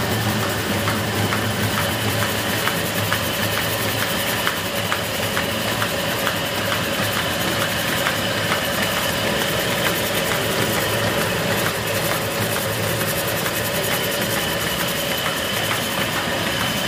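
Motor-driven stone flour mill running steadily while grinding grain into flour, a constant machine drone with a fast, regular ticking over it.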